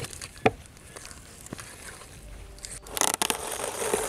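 Compound butter being mashed in a stainless steel mixing bowl: soft squishing and scraping, with a sharp knock about half a second in. About three seconds in, plastic cling wrap is pulled from its box and smoothed out, a steady crinkling rustle.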